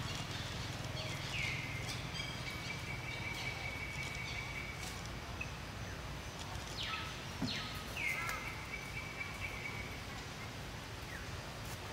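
Forest ambience: a steady low rumble with repeated whistled calls from forest birds, each sweeping down in pitch and then holding one high note, the longest for about three seconds.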